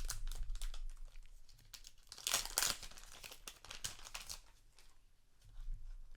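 Trading-card booster pack wrapper being crinkled and torn open, with a louder burst of crinkling about two seconds in.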